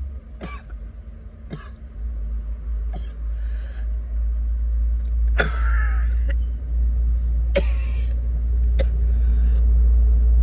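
A man coughing and clearing his throat, about six short coughs spread over the stretch, over a steady low rumble. The coughing goes with his complaint of a sore throat and a tight chest.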